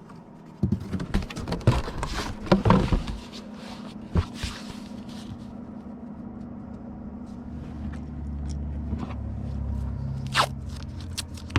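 Rustling and scraping of a bagged comic book being handled and slid into a cardboard mailer, then a click and a short sharp rasp near the end, over a steady low hum.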